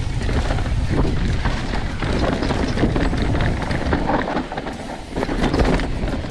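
Mountain bike rolling fast down a dirt singletrack: heavy wind buffeting on the microphone over the rumble of the tyres, with frequent knocks and rattles from the bike running over rocks and ruts.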